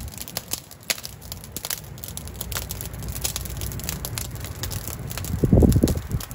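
Fire crackling in the firebox of a homemade smoke oven: irregular sharp pops over a low rumble, with a louder muffled thump near the end.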